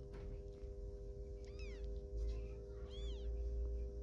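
Newborn kitten mewing: two short, high-pitched mews, each rising then falling in pitch, about a second and a half apart.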